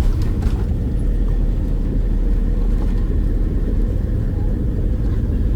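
Steady low rumble of engine and airflow noise inside the cabin of a Boeing 767-300ER airliner, with faint clicks about half a second in.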